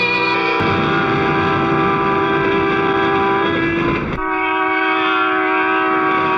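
A passenger train rumbling past on the rails under a long, steady horn. The rumble stops abruptly about four seconds in, while the held tones carry on.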